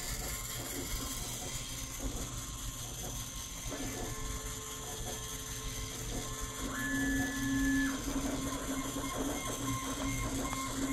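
Homemade 8mm film telecine running: its hobby servo steps the film through the 3D-printed gate with a chirpy, ratcheting mechanical sound. Behind it, a 3D printer's motors hum at steady pitches that change every few seconds.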